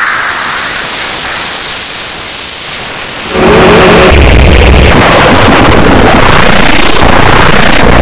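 Heavily distorted, clipped meme-edit audio. Over the first three seconds a high whistle dips and then rises through a harsh hiss. About three seconds in, a loud wall of harsh noise cuts in and runs on, with a heavy bass rumble a second later.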